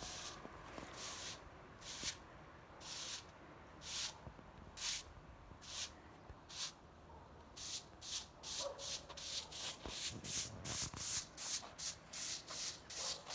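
A hand tool rasping over coast fir in repeated strokes, slow at first, about one a second, then quickening to two or three strokes a second from about eight seconds in.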